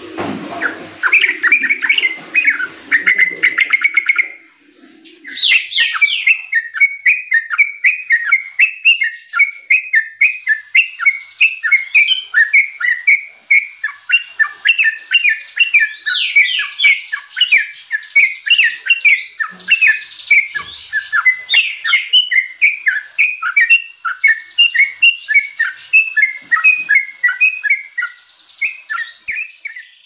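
Yellow-vented bulbul singing a fast, unbroken run of short chirping notes, with one brief pause about four seconds in.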